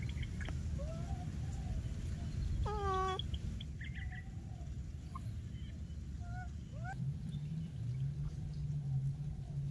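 Baby macaques calling: several short squeaks and one longer, clear coo about three seconds in, over a low steady hum.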